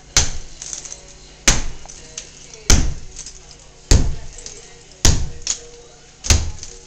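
Sledgehammer blows on a tiled concrete bathroom wall: six heavy strikes, about one every 1.2 seconds, with smaller clicks of breaking tile and debris between them.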